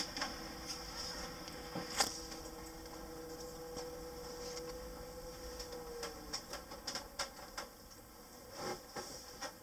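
EasyMile driverless electric shuttle heard from inside the cabin: a steady electric drive whine that dips slightly in pitch and fades out about six seconds in as the shuttle slows. Scattered light clicks and rattles, with one sharp click about two seconds in.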